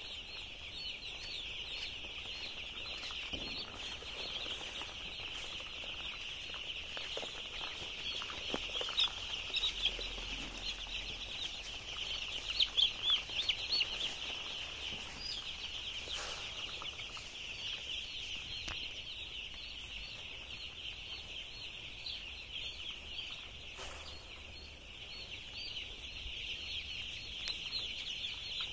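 Hundreds of young chicks peeping all at once: a dense, continuous chorus of high chirps.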